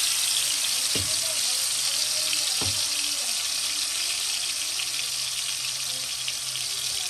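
Marinated chicken drumstick sizzling steadily in hot oil in a stainless steel wok. Two soft knocks come about one and nearly three seconds in.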